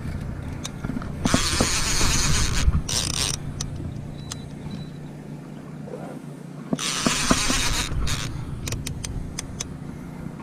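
A baitcasting reel being cranked while fighting a hooked fish, with scattered mechanical clicks, and several rough rustling bursts of about a second or more as a fabric sleeve rubs against the camera.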